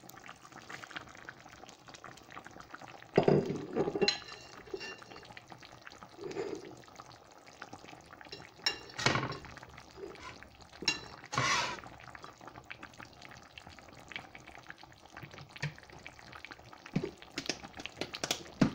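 Chicken curry simmering in a frying pan, its liquid bubbling and popping in fine, continual ticks. A few louder knocks and rustles come as sliced onion is tipped in and the pan is handled, the loudest about three to four seconds in.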